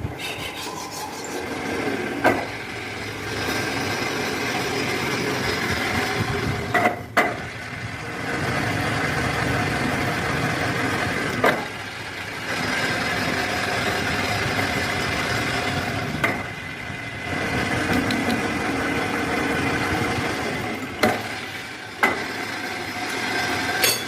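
Workshop machinery running with a steady whine that swells in several spells of a few seconds each, broken by sharp clicks and knocks in between.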